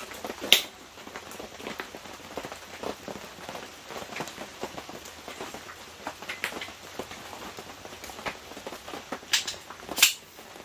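Clicks and clanks of a folding camp table's metal leg tubes and frame being fitted together, with a sharp clank about half a second in and two more near the end, over light rustling and tapping.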